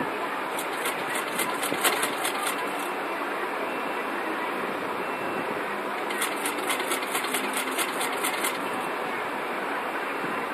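Paper pages of a paperback manga being flipped through by hand, heard as two runs of quick, evenly spaced ticks a few seconds apart, over a steady hiss.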